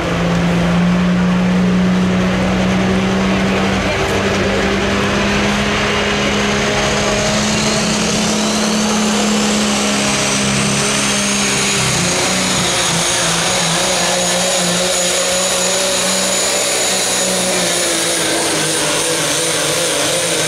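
Super stock diesel pulling truck, a second-generation Dodge Ram, running hard under load as it drags a weight-transfer sled, with black smoke from the stack. A high turbocharger whistle rises over the steady engine note about six seconds in and then holds.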